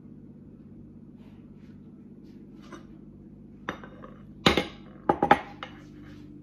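A ceramic plate and a glass jar set down on a hard countertop: one knock about three and a half seconds in, then a quick cluster of clinks and knocks, over a steady low hum.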